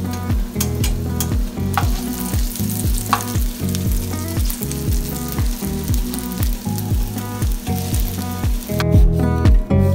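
Butter sizzling as slices of bread fry in a nonstick frying pan, with the pieces pushed about by a wooden spoon. The sizzle dies down near the end. Under it, background music with a steady beat.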